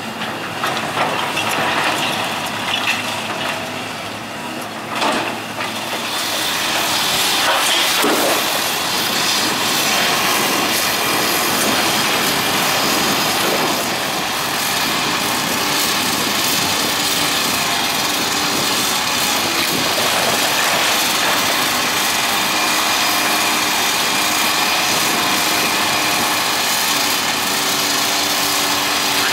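Kobelco hydraulic demolition excavator running while tearing down a brick building, with knocks and clatter of falling bricks and debris in the first few seconds. After about six seconds a louder, steady rushing noise takes over, with the engine still running underneath.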